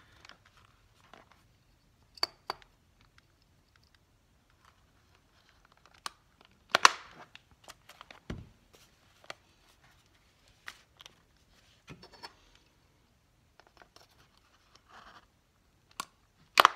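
Small metal binder clips being clamped onto the edge of a journal cover and its paper signature, with paper rustling and the book being handled. Scattered sharp clicks and knocks, the loudest about seven seconds in and just before the end, and a low thump about eight seconds in.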